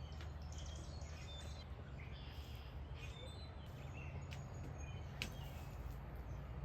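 Faint outdoor background of small birds chirping here and there over a steady low hum, with a few faint clicks about halfway through.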